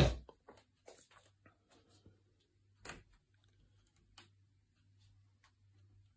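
A thump right at the start, then scattered light knocks and clicks of a phone being handled while someone moves about a small room, over a faint steady low hum.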